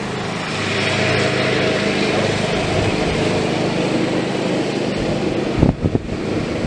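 An engine running steadily, with low thumps of wind hitting the microphone near the end.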